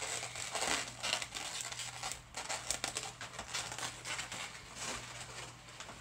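Latex modelling balloon being handled and twisted by hand: an irregular run of small rubbery rubs, crinkles and clicks.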